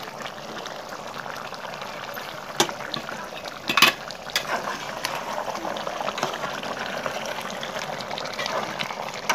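Chicken curry gravy bubbling in a steel pan, a steady crackle of small pops. A metal ladle clinks against the pan twice a few seconds in, then stirs through the curry.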